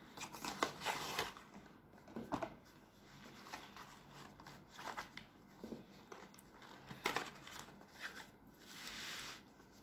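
Cardboard packaging being handled: an inner box slid out of its sleeve and folded open, with faint scattered scrapes, rustles and small clicks.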